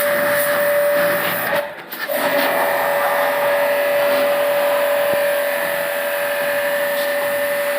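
An electric motor running steadily with a high whine over a hiss. It dips out briefly between about one and a half and two seconds in, then runs on.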